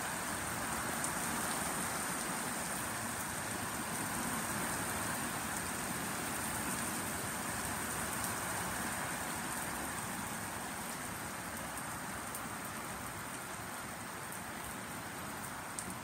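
Heavy rain falling steadily onto the road and driveway, easing a little in the second half.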